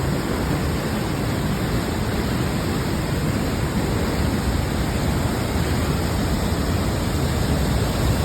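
Creek waterfall in heavy flood flow after about 150 mm of rain: a steady, loud rush of falling water.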